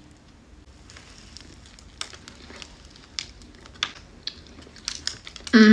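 Close-miked chewing and eating of a s'mores donut with a Pop-Tart baked inside: a string of short, crackly mouth sounds and bites. A brief voice sound comes just before the end.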